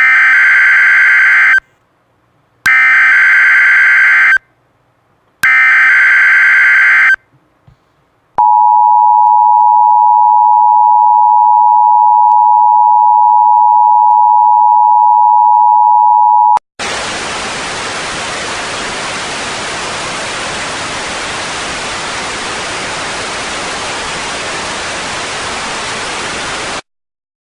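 Emergency Alert System tones: three short bursts of SAME digital header data, each under two seconds with about a second between them, then the steady two-tone EAS attention signal held for about eight seconds. After it comes about ten seconds of quieter white-noise static, which cuts off suddenly near the end.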